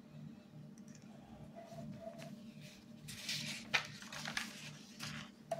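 Paper pages of a printed exam booklet being turned, rustling from about three seconds in with a sharp crackle partway through.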